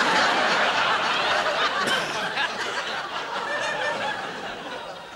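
Studio audience laughing, loudest at the start and slowly dying away.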